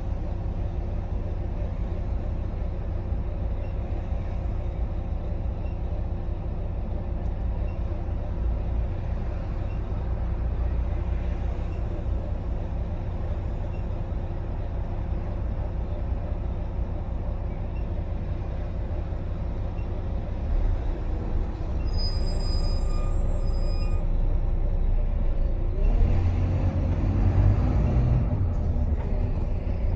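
Volvo B9TL double-decker bus's six-cylinder diesel engine idling steadily while the bus stands, heard from the upper deck. Near the end the engine gets louder and rises in pitch as the bus pulls away, after a brief high-pitched tone a few seconds earlier.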